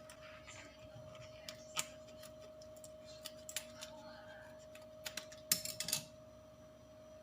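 Scattered light taps and clicks of kitchen utensils and containers during baking, with a quick run of clicks near the end, over a faint steady hum.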